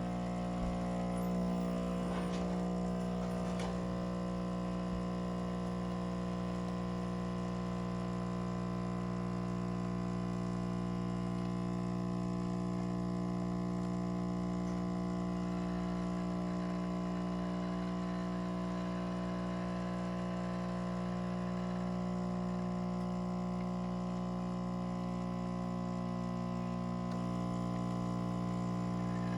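Chefman 6-in-1 espresso machine running a cappuccino cycle, its 15-bar pump giving a steady buzzing hum, which the owner calls a little bit loud. The hum changes slightly near the end.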